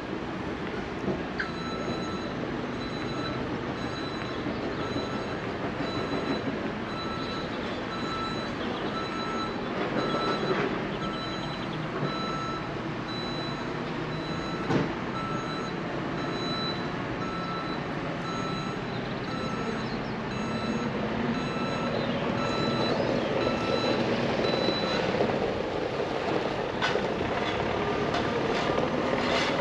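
An electronic warning beeper sounding over and over, a little over one beep a second, against steady background noise; it stops about four seconds before the end. Several sharp clicks and knocks follow near the end.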